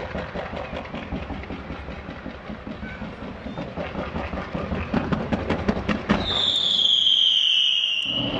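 Fireworks: a fan of shots fired in quick succession, a dense rattle of rapid pops. About six seconds in, a loud shrill whistle falling slightly in pitch for about two seconds.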